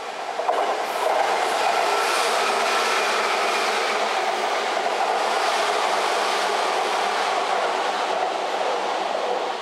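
Seibu 4000 series electric train running past close by. The noise builds over the first second, holds steady while the cars go by, and drops off near the end as the last car clears.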